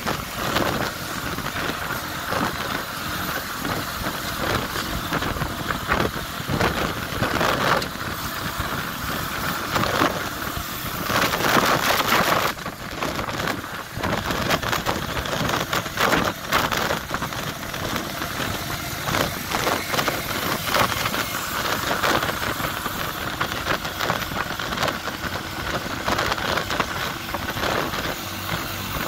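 Motorcycle riding at road speed: engine running under a rushing noise of wind and road that rises and falls unevenly, loudest about eleven seconds in.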